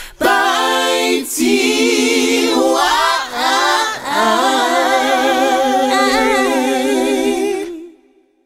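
A cappella vocal outro jingle: several layered voices singing long, wavering held notes with no clear words, fading out near the end.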